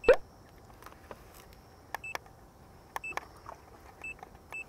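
Several short, high electronic beeps at irregular intervals, mixed with a few small clicks.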